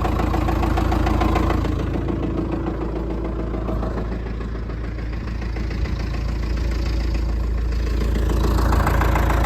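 John Deere 450B bulldozer's engine idling just after a cold start, warming up. The engine sound eases off a little through the middle and picks up again near the end.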